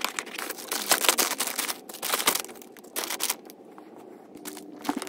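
Plastic-wrapped gift items crinkling and rustling as they are packed into a cardboard shoebox, with quick clicks and taps of the items against the box. The handling goes quieter near the end.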